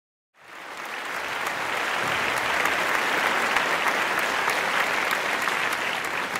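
Audience applauding, starting abruptly about half a second in, swelling and then tapering near the end.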